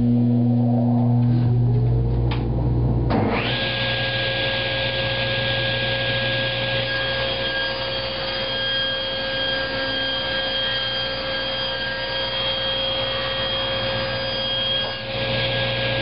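A dust collector switches on with a loud low hum. About three seconds in, the sliding tablesaw's motor spins up to speed with a rising whine, and both then run steadily together.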